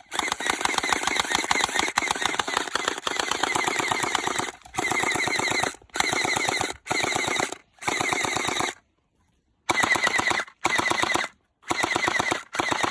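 Gel blaster firing on full auto: one long rapid burst of shots for about four and a half seconds, then a string of shorter bursts of about a second each with brief pauses between them.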